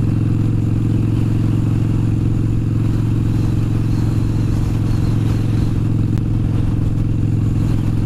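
Harley-Davidson V-twin motorcycle engine running steadily at cruising speed, its pitch holding level throughout.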